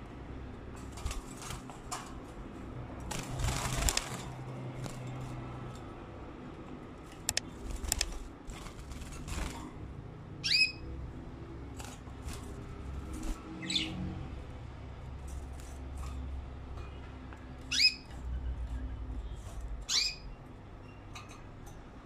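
Caged canaries hopping and fluttering, with a burst of wing flapping about three seconds in and small clicks and rustles of feet on the wire. In the second half come four short, sharp calls that slide downward in pitch.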